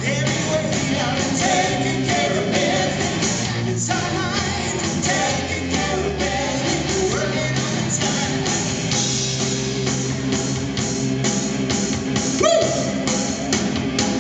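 Live rock band playing: a woman singing lead over electric guitars, bass guitar and a drum kit keeping a steady beat.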